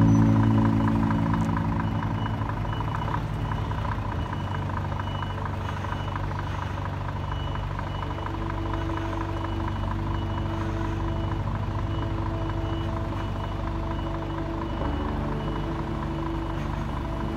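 A lorry reversing at a loading dock: a diesel engine running steadily under a repeating high reversing beeper.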